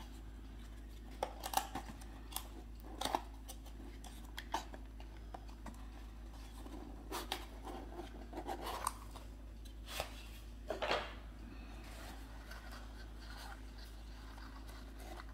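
A small kraft cardboard box is handled and opened and tissue-paper wrapping is pulled out: irregular rustling, scraping and light taps, busiest in the first eleven seconds and quieter near the end.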